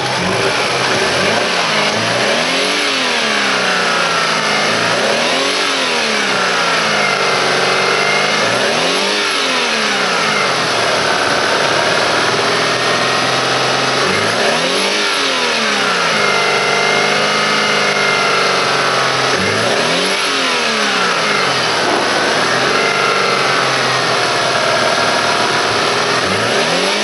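Alfa Romeo 147's 2.0 16V Twin Spark four-cylinder petrol engine running. The throttle is blipped about half a dozen times, each rise in revs falling back to idle, as a running demonstration of a used engine for sale.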